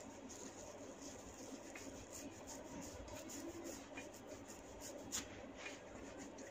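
Hands rubbing and tugging at hair on the scalp in a hair-cracking massage, with small scattered crackles and one sharp crack about five seconds in.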